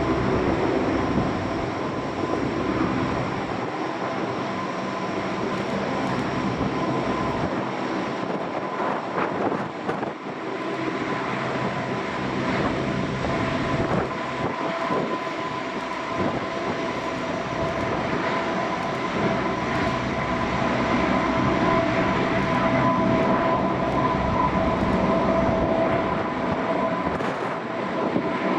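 Turboprop engines of a Lockheed P-3-family four-engine patrol aircraft running, with a steady high whine over a broad rushing noise.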